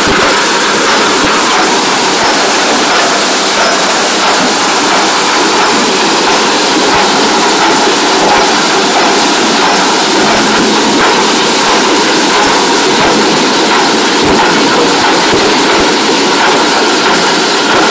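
Steady noise of a bucket-chain diamond dredger at work: its rotating trommel screen and drive machinery running, with water spray and gravel rattling through.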